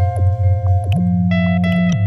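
Background music: held bass notes under a run of short higher notes, with light ticks on top.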